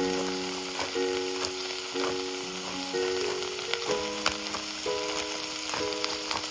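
Food frying in hot oil in a pan: steady sizzling with scattered sharp crackles and pops.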